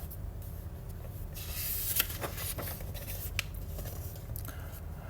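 Paper rustling and soft handling clicks as a picture book's page is turned. Most of it falls in the middle of the pause, with a few light clicks between about two and three and a half seconds in.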